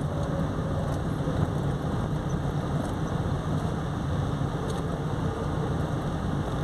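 Car driving along a paved village street: a steady low rumble of engine and tyres.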